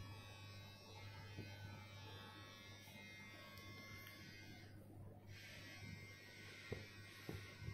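Near silence: a faint steady low hum of room tone, with a couple of faint clicks near the end.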